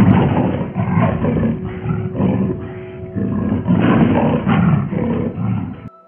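A large animal's harsh, growling roar, delivered as a run of rough calls about two or three a second, then cutting off abruptly near the end.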